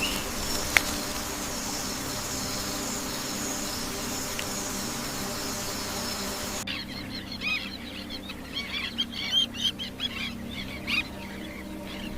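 Rainforest soundscape: a steady, even hiss of forest ambience with faint high steady tones, which cuts off abruptly about two-thirds of the way through. Many birds then call and chirp in short notes that rise and fall.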